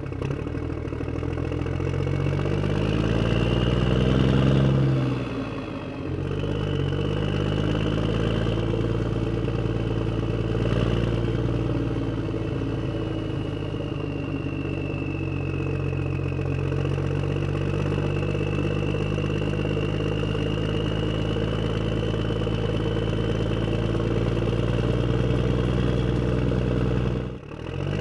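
Simulated truck engine sound from the sound-effects module of a Huina 1573 RC dump truck, revving up about four seconds in, dropping back, then running steadily, with a brief dip near the end. A thin high whine runs under it.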